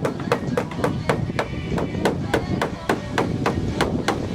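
Rapid, even knocking, about five sharp strikes a second, over a steady low rumble.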